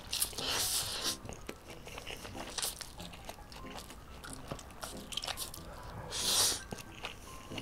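A person slurping spicy stir-fried noodles into the mouth in two long slurps, one at the start and one about six seconds in. Between them come chewing and small mouth clicks.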